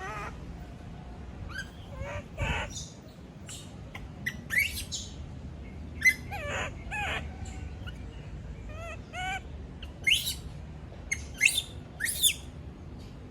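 Young pet monkey screaming and squeaking in repeated short, high-pitched calls, some sliding up or down in pitch, with the sharpest cries near the end.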